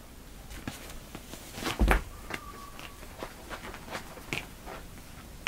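Kitten claws catching and scratching on denim jeans as two kittens climb onto a person's legs: scattered light scratches and clicks, with one louder thump about two seconds in.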